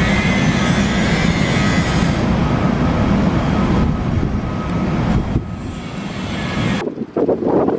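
New York & Atlantic freight train running past: a loud, steady rumble of the diesel locomotive and rolling cars, with a faint high wheel squeal in the first couple of seconds, easing off after about five seconds. Near the end it cuts abruptly to wind buffeting the microphone.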